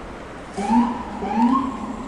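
Emergency vehicle siren giving two short rising whoops about a second apart, over steady street traffic noise.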